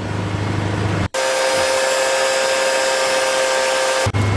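Electric induction furnace running with a full melt of steel: a steady low hum that cuts off abruptly about a second in, replaced by a louder, higher steady whine with hiss, which cuts back to the hum near the end.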